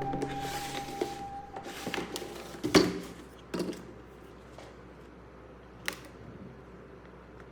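A held musical tone fades out over the first second and a half, then a few scattered light clicks and knocks sound over a faint quiet background, the sharpest about two and a half seconds in.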